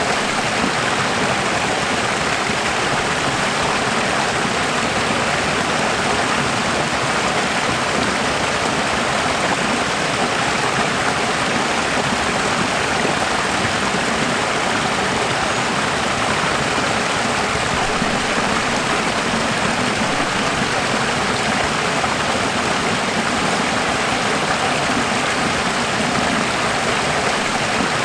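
Running water: a steady, even rush of a stream, unbroken and unchanging.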